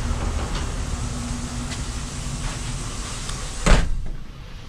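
A door shuts with one sharp bang nearly four seconds in, over a steady background hum and hiss that drops quieter once it closes.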